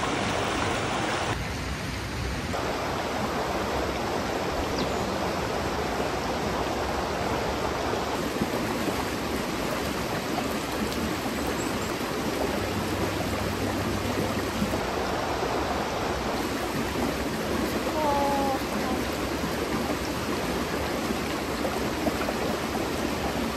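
Stream of water running steadily: an even, continuous rush of flowing water.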